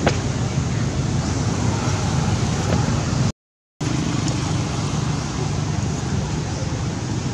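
Steady rushing outdoor noise with a heavy low rumble, broken by about half a second of total silence a little before the middle.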